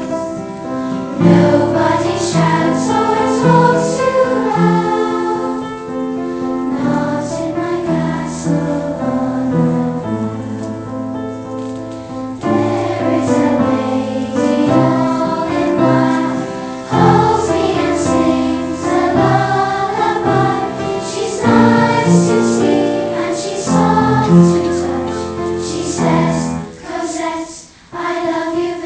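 A choir singing in several parts, holding chords that change every second or two, with a short drop in level near the end.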